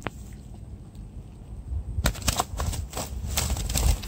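A low rumble with a single click at the start. From about halfway there is a fast, irregular run of rustles and slaps as a blue nylon mesh keep net holding a freshly caught rohu is handled and lifted from the water.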